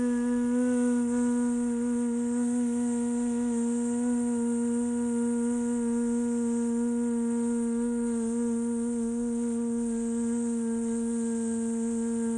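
A woman's steady buzzing hum on one long exhale with her teeth together: the yoga bee breath (bhramari). It holds one pitch throughout, with a hissy "zzz" edge.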